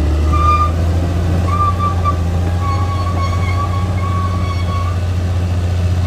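Caterpillar D6R XL bulldozer's diesel engine running steadily under work, with a thin high squeal coming and going over it.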